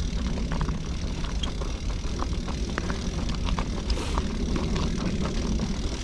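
Norfolk Southern intermodal freight train rolling past close by, its flatcars' wheels making a steady low rumble on the rails with scattered short clicks.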